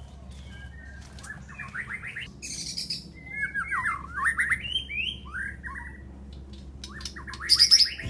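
Songbird singing: several phrases of quick runs of sliding, chirping notes, with a burst of song again near the end.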